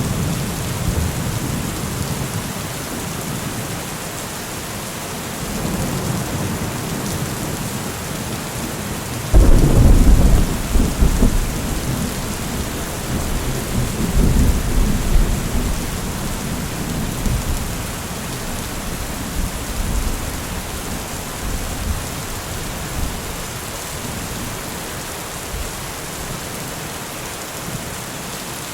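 Steady heavy rain with rolling thunder: a deep rumble swells in about nine seconds in as the loudest sound and dies away over a few seconds, with another about five seconds later and a smaller one earlier.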